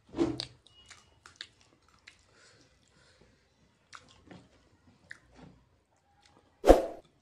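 A person chewing and biting fried chicken lollipop and noodles, close to the microphone: scattered small mouth clicks and smacks, with two louder bursts just after the start and near the end.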